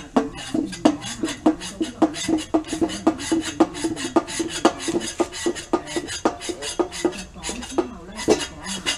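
Hand pump of an Air Power America 5060 Topsider fluid extractor being worked up and down, a sharp click with each stroke about twice a second over a wavering tone. The pumping draws a vacuum in the tank to suck engine oil up out of the dipstick tube.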